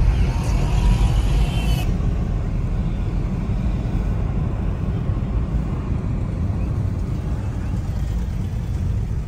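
Steady low rumble of a car's engine and tyres on the road, heard inside the moving car's cabin.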